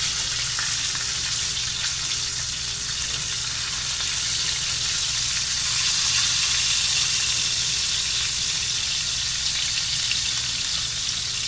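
Pieces of fish sizzling in hot oil in a stainless steel frying pan as they are turned with tongs: a steady, even hiss with a low steady hum underneath.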